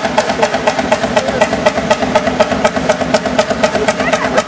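Huge 1942 Fairbanks Morse Model 32 diesel engine running with a quick, even exhaust beat, several strokes a second. It is firing on only one cylinder.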